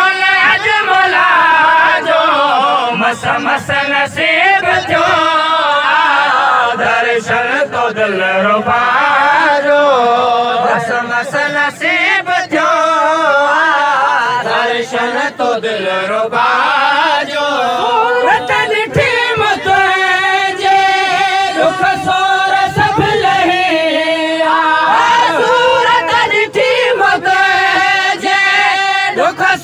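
A man singing a Sindhi folk song into a microphone, in long, sliding, held notes.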